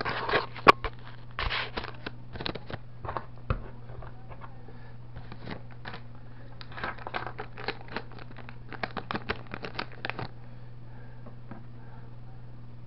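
Paper and plastic packaging rustling and crinkling as small electronic parts are handled and unwrapped, in scattered bursts of crackling near the start and again in the second half, over a steady low hum.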